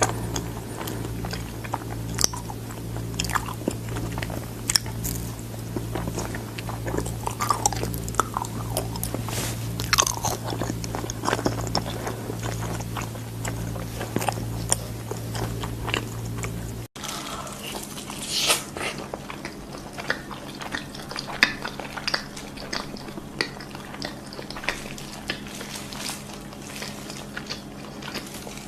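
Close-miked chewing and crunching of food with lip smacks, many short crackles over a steady low hum. About seventeen seconds in the sound cuts out for an instant and the hum behind it changes pitch.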